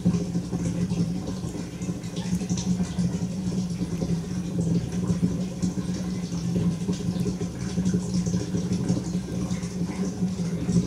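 A steady low machine hum from a running motor, holding an even pitch throughout, with faint light ticks above it.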